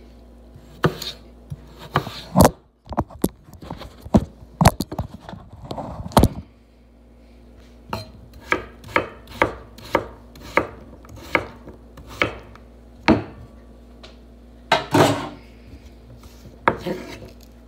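Chef's knife chopping a peeled vegetable on a wooden cutting board: sharp knocks of the blade against the board, irregular at first, then a steady run of about two cuts a second, with a few louder, longer strokes near the end.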